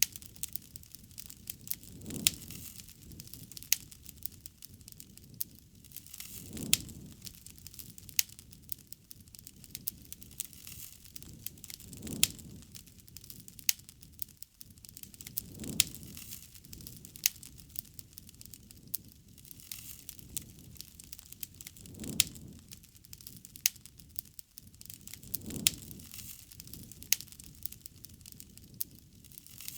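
Wood fire crackling, with many sharp snaps and pops scattered throughout and a low, soft swell of sound every few seconds.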